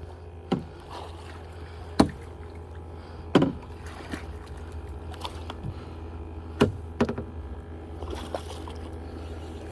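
Irregular knocks and water splashes around a plastic fishing kayak, about eight in all, over a steady low rumble.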